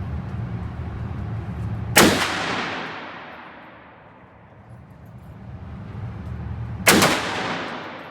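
Two single gunshots about five seconds apart, each followed by a long echoing decay.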